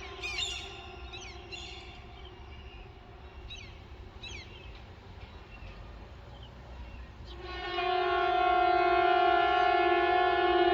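Civil defence warning siren sounding a steady tone that dies away in the first two seconds. Birds chirp in the lull, and the siren comes back on about seven seconds in, building over a second to a loud, steady tone.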